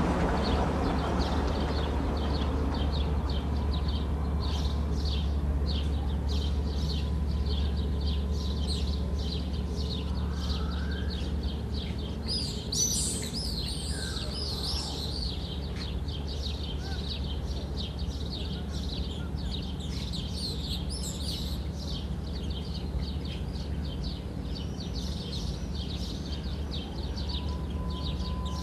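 Small birds chirping rapidly and over and over, with louder bursts of calls about halfway through and again a few seconds later, over a steady low machinery hum.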